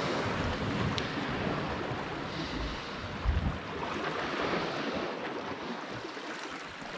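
Small waves lapping and washing against shoreline rocks, with wind buffeting the microphone in gusts.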